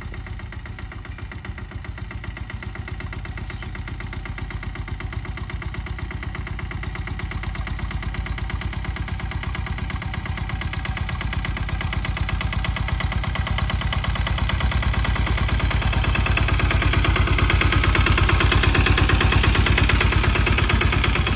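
Engine of a saneda, a homemade motorcycle-based farm tractor, running steadily with a rapid, even beat while pulling a groundnut seed drill. It grows gradually louder as the machine comes closer.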